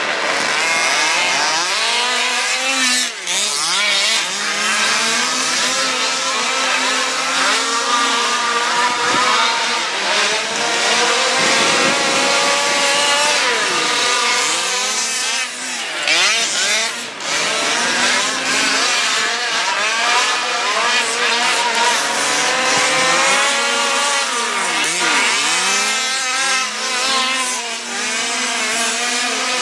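Several petrol-engined radio-controlled race cars running together, their small two-stroke engines overlapping as they rev up and ease off through the laps.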